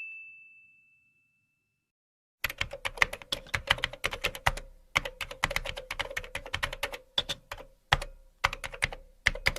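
Rapid, irregular clicking of typing on a keyboard, in quick runs with short pauses, starting about two seconds in after a moment of silence. A ding's ringing tone fades out at the very start.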